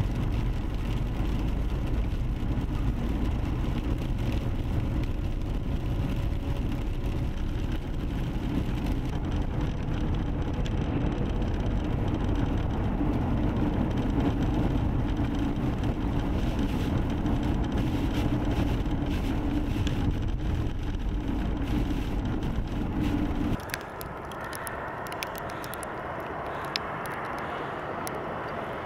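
Steady low road rumble from inside a vehicle driving a snow-covered highway. About three-quarters of the way through it cuts to a quieter roadside sound of passing traffic, tyres hissing on the slushy road, growing louder near the end.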